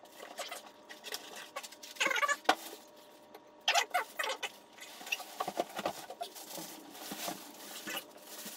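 Plastic packaging bag crinkling and rustling in irregular bursts while the printer inside is pulled out of its cardboard box.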